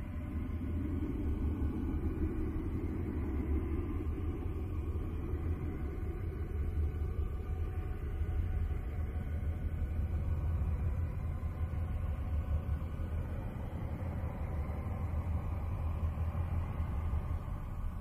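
Eerie space-sound drone presented as the sound of Uranus's moon Miranda: a steady deep rumble, with a softer hum in the first few seconds and faint held tones above it.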